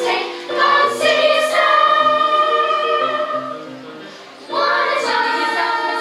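Children's choir singing together in unison, holding long notes. The singing dies down about three and a half seconds in and comes back strongly about a second later.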